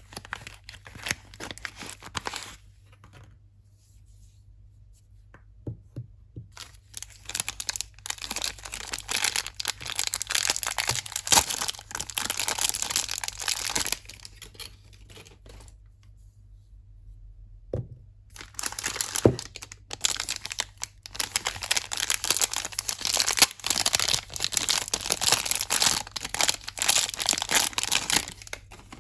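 Soap wrapping being torn and crinkled open by hand: two long spells of dense crackling and tearing, with quiet pauses between.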